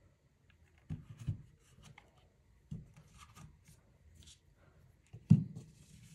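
Handling sounds: a few soft knocks and taps as a Milwaukee M12 cordless ratchet is laid down on a rubber mat and a steel socket is picked up. The sharpest knock comes about five seconds in. The ratchet's motor is not running.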